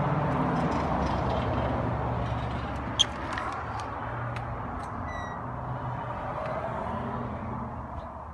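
Steady low hum of a motor running in the background, with a single sharp click about three seconds in.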